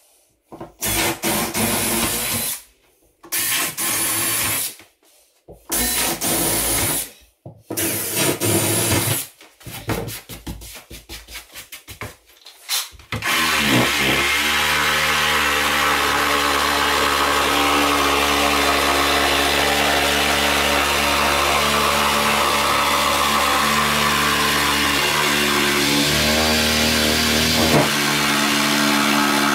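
Makita cordless jigsaw cutting a sink opening in a laminate kitchen worktop. The first half is short bursts of power-tool noise with breaks between them; from about halfway through the saw runs steadily through the cut, its pitch shifting briefly near the end.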